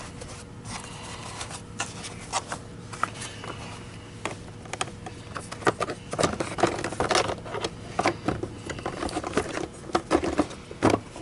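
Hard plastic vacuum-cleaner housing parts being handled and fitted together: scattered clicks, knocks and light scrapes that come thicker and louder in the second half.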